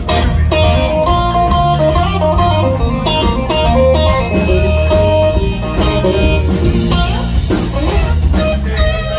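Live band with two electric guitars and a drum kit playing; one guitar carries a lead line of single held notes, with pitch bends near the end, over the drums.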